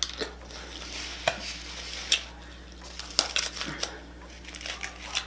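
Close-miked eating sounds: a person chewing a crunchy tortilla wrap and chips, with scattered sharp crunches and clicks about a second apart and a quick run of them a little past the middle.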